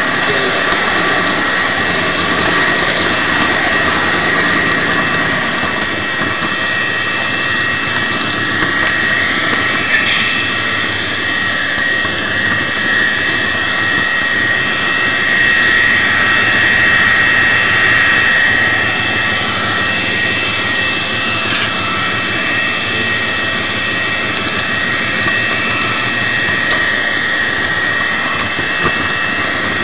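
LokSound digital sound decoder in a model Class 66 (EMD JT42CWR) diesel locomotive playing a steady diesel engine running sound through its small speaker. A high whine runs through it and swells slightly about halfway through.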